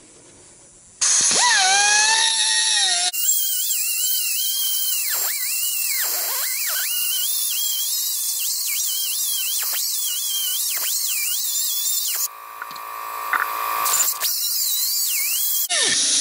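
Pneumatic cutoff tool with an abrasive cutoff wheel cutting steel channel: a high whine starts about a second in, its pitch sagging again and again as the wheel bites into the steel and bogs down, then climbing back as it frees. The tool is short on air, so it bogs under load.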